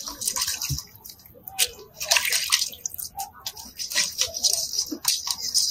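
Hands washing cut crab pieces in a metal bowl of water: irregular sloshing and splashing with small clicks and knocks.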